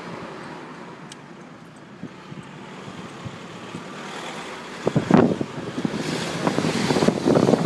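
Volkswagen Passat B5 1.9 TDI running, with engine and road noise low at first. From about five seconds in, a few sharp thumps and a swelling rush of noise build to the end.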